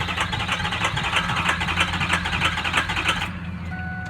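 Ford 6.0L Power Stroke V8 diesel cranking on the starter in a quick, even rhythm without catching, then cut off sharply about three seconds in. This is hard starting from failing injectors: No. 7 is nearly dead and No. 3 is going. A steady low hum continues underneath, and there is a brief beep near the end.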